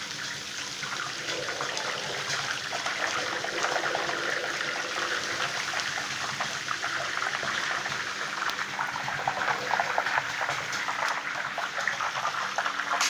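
Tofu cubes deep-frying in a wide wok of hot oil: a steady, dense sizzle and crackle that grows busier in the second half.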